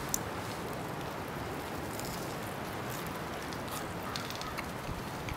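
Steady hiss of wind outdoors, with a few faint crackles.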